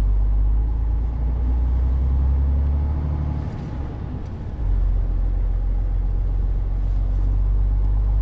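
Articulated lorry's diesel engine running as it drives, a steady low rumble heard from inside the cab. The rumble drops away briefly about halfway through, then picks up again.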